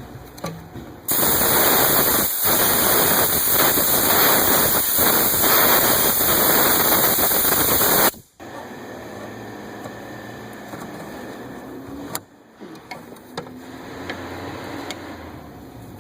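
A loud, steady spray hiss of gas under pressure, starting about a second in and cutting off suddenly after about seven seconds.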